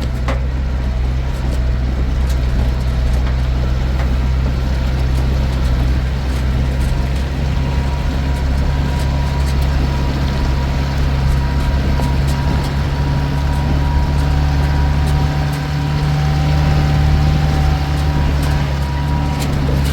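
Motor vehicle engine running at a steady pace, a continuous low drone.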